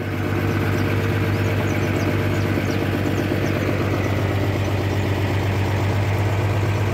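A truck engine running steadily with a low, even hum, picking up a little at the start and then holding steady.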